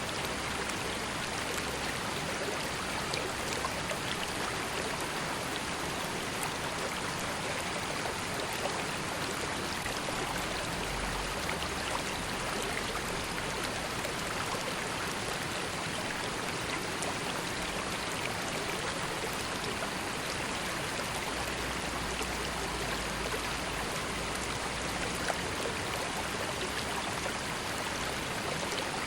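River water flowing in a steady, even rush, with faint tiny splashes scattered through it.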